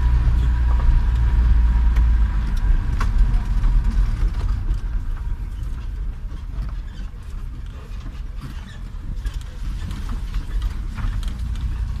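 Vehicle driving slowly on a rough gravel dirt road, heard from inside the cab: a steady low engine and tyre rumble with scattered small knocks and rattles, easing off somewhat about halfway through.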